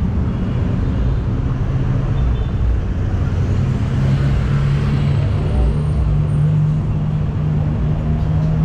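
Motorcycle engine running under way, with road and wind noise on the rider's microphone; the engine hum climbs slightly about halfway through and holds.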